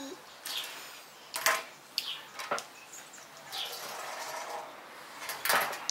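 Small plastic toy pieces giving a few sharp, irregularly spaced clicks and taps as they are fitted together by hand.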